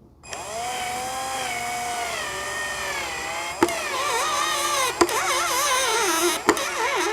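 Power drill driving a screw into a shelf panel. The motor whine starts a moment in and sags in pitch about three seconds in. After that it wavers up and down under load, with three sharp clicks.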